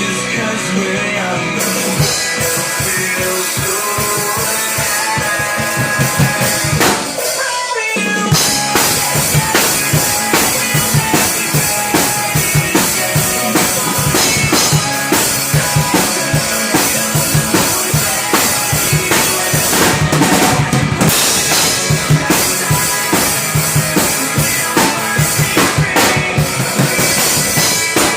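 Acoustic drum kit played live along to a recorded pop-rock song: bass drum and snare come in about two seconds in, break off briefly around seven seconds, then settle into a steady beat with rimshots and cymbals.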